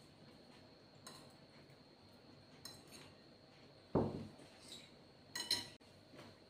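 Ceramic plate of vegetables set down on a tiled tabletop with a dull knock about four seconds in, followed by a metal fork clinking sharply against the plate. Fainter clinks of the fork on crockery come earlier, as food is served.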